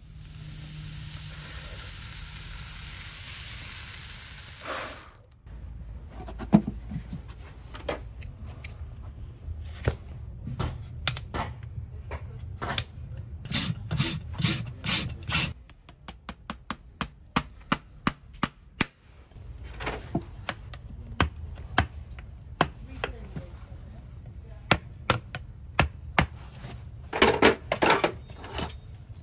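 A hot steel horseshoe sizzles steadily for about five seconds as it is pressed against the hoof wall for a hot fit. A farrier's rasp then files the hoof in repeated scraping strokes, coming fast and close together about halfway through.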